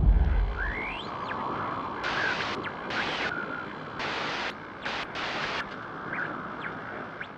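Sound effects of an animated GoPro logo intro: a deep boom fading out in the first second, then a hiss of noise broken by sudden glitchy bursts that switch on and off, with a few quick whistling sweeps. It cuts off abruptly at the end.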